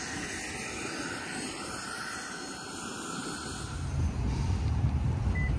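Steady rushing hiss of jet aircraft noise on the ramp. After about three and a half seconds it gives way to a louder, uneven low rumble, with two short high beeps near the end.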